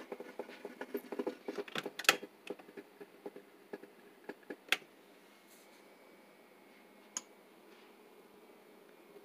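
Kitchen handling sounds: a rapid run of small clicks and crackles, then a frying pan set down on a glass-top electric stove with a sharp clack about two seconds in. A click follows as the stove's control knob is turned, then only faint room hum.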